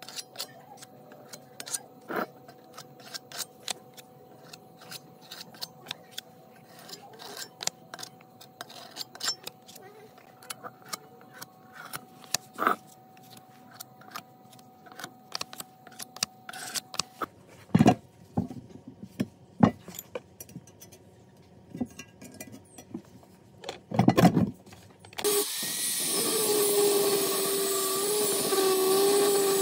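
Tools and metal parts being handled at a workbench: many scattered clicks and knocks, with a few heavier knocks about 18 and 24 seconds in. About 25 seconds in, a loud steady hiss with a wavering tone starts.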